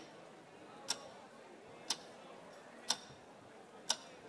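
Sharp, loud ticks at a steady pace of one per second, like a clock ticking, over a low background noise.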